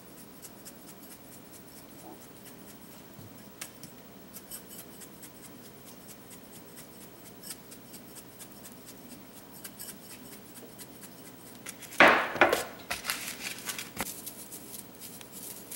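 Faint rapid ticking and rattling of a glass seasoning shaker with a metal lid, shaken over raw cube steaks. About twelve seconds in come several louder rustles and knocks.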